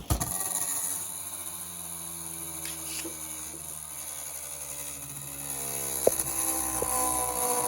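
Beyblade Burst Pro Series Orb Egis spinning in a plastic stadium just after launch, a steady whine and hum that sounds like a race car. A couple of light clicks about six and seven seconds in.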